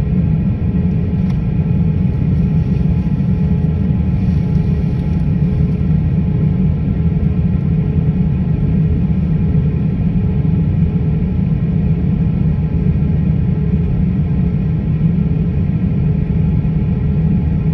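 Jet airliner cabin noise heard from a window seat: a steady low rumble with several faint steady whining tones from the engines at idle while the aircraft stands still on the ground.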